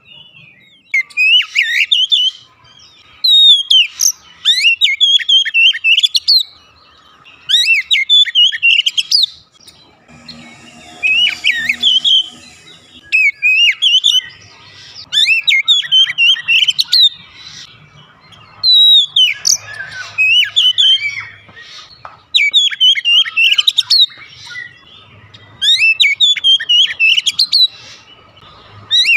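Oriental magpie-robin (kacer) singing in full song: loud, varied whistled phrases of a second or two each, repeated with short pauses between them.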